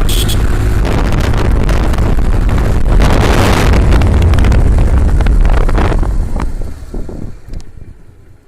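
Motorcycle engine running, with wind buffeting the microphone; the sound dies away over the last couple of seconds.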